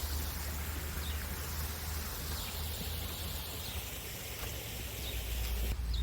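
Outdoor ambience: a steady low rumble and hiss, with a few faint, short descending bird chirps.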